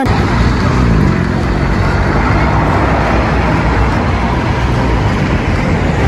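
Fire engine's engine running steadily, a low rumble with a rushing noise over it.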